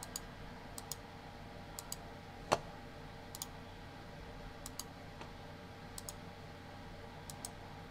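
Computer mouse button clicking, each click a quick pair of ticks (press and release), about seven times at roughly one-second intervals. About two and a half seconds in there is one louder knock. A faint steady hum runs underneath.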